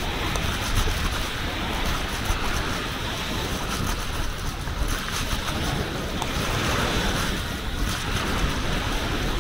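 Sea surf washing on the shore, steady throughout, with wind blowing on the microphone.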